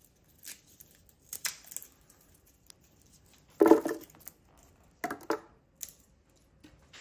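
Kitchen handling noises as a halved onion and a whole head of garlic are handled: light rustling and scattered clicks, with a louder clunk about three and a half seconds in and two more knocks near five seconds.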